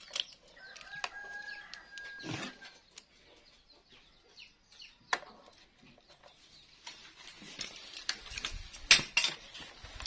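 Chickens clucking, with a rooster crowing once for about two seconds near the start. Under them come small metal clicks and clinks of a screwdriver and parts as a motorcycle carburetor is being unbolted, the loudest clatter about nine seconds in.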